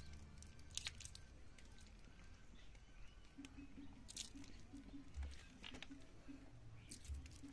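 Honeycomb being crushed and squeezed by hand: faint, wet crackling and squishing of wax comb, with scattered sharp clicks and a few low thumps.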